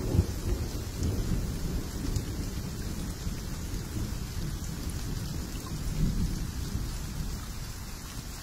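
Steady heavy rain with low rumbles of thunder. The rumble swells right at the start and again about six seconds in, and the rain fades out near the end.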